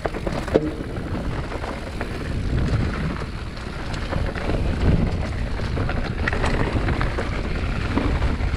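Mountain bike riding down a dirt trail: wind rushing over the microphone, with tyres rolling and the bike rattling, and scattered small knocks.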